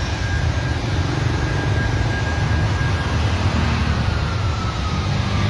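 Low rumble of road traffic, with the faint steady tone of a traffic police siren above it that begins to slide slowly down in pitch about four seconds in.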